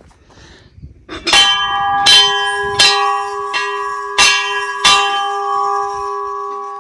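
Hindu temple bell struck about five times in quick, uneven succession, its ringing tones carrying on between strikes and dying away after the last.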